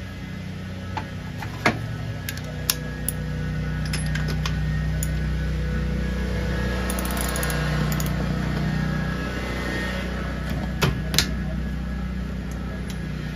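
Socket wrench loosening a spark plug from a Rotax two-stroke twin's cylinder head: scattered metal clicks and a short run of fast ratchet clicks about seven seconds in, over a steady low hum.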